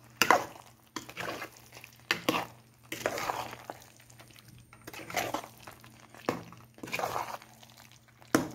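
Steel ladle stirring thick spinach-and-potato curry in a pot, a scraping, squelching stroke about once a second as the salt just added is mixed in.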